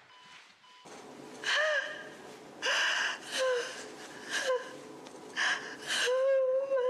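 A woman gasping and whimpering in distress: about half a dozen short, breathy gasps with a voiced catch, turning into a longer wavering cry near the end.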